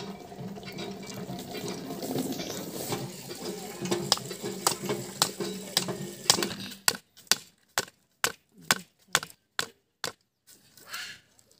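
Snakehead (shol) fish being cut on a foot-held curved blade: a run of sharp knocks and crunches, about three a second, in the second half, as the fish is pressed and worked through the blade. Before that there are scattered clicks over a low steady hum.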